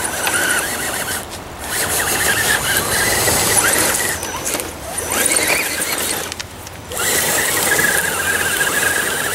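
Electric motor and gear drivetrain of a radio-controlled rock crawler whining under load as it climbs a rocky dirt slope, the pitch wavering with the throttle. It cuts out briefly about a second and a half in and again around six and a half seconds, then picks up again.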